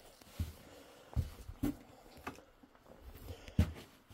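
About five dull thumps and knocks at uneven intervals: someone stepping and moving things about on the wooden floor of a barn.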